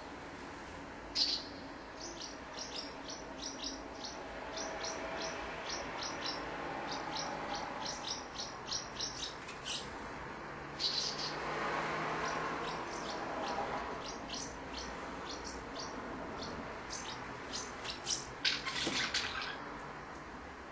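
Common house martins chirping: a run of short, high chirps at about two a second, with louder calls about a second in, midway, and in a cluster near the end.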